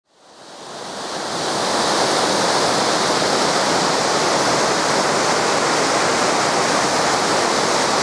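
Rushing water of a stream and waterfall in full flow, a steady rush that fades in over the first two seconds.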